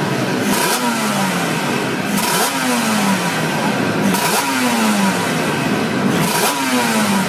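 Yamaha two-stroke racing motorcycle engine blipped on the throttle while standing: four sharp rev bursts about two seconds apart, each falling back toward idle.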